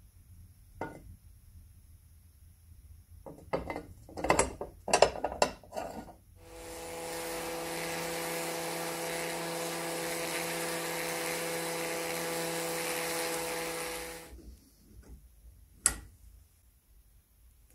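A few loud sharp knocks, then a small handheld rotary tool runs steadily for about eight seconds, its bit worked against a rusty threaded screw fitting, with a steady motor whine. A single sharp click near the end.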